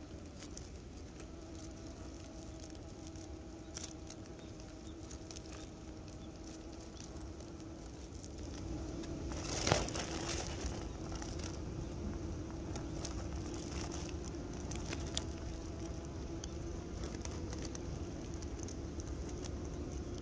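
Honeybees at a hive feeder, their wings making a steady low hum, with many small scattered clicks and a brief loud rustling burst about halfway through.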